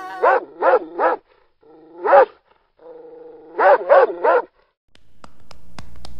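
A dog barking: three quick barks, a single bark about two seconds in, then three more around four seconds in. After that a low hum fades in, with a few sharp clicks near the end.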